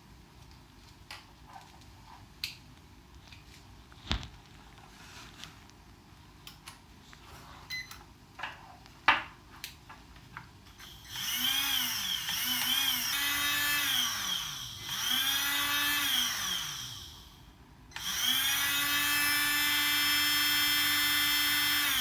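Light clicks and knocks, then a 540-size electric RC car motor driven by the older ESC, spun up in several short throttle bursts, its whine rising and falling in pitch. After a brief drop it is held at a steady high speed for the last four seconds, showing that the older ESC runs the larger motor.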